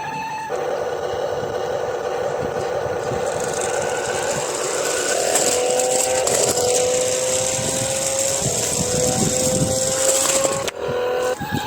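Remote-control toy car running: a motor whine that creeps slowly up in pitch and drops back several times, over a steady rattling hiss of gears and wheels. It cuts off abruptly at the end.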